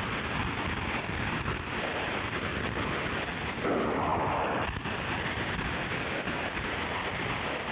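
Shortwave static and hiss from an ICOM IC-718 receiver as it is tuned up the 49-metre band between stations. About four seconds in, a stronger signal comes through for about a second, then drops back into static.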